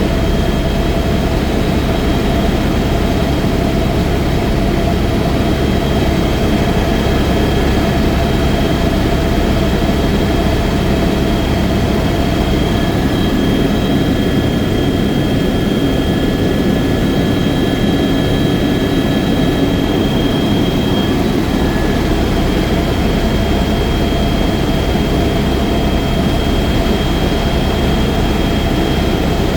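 Helicopter turbine engine and rotor running steadily: a loud, even drone with a constant high-pitched whine.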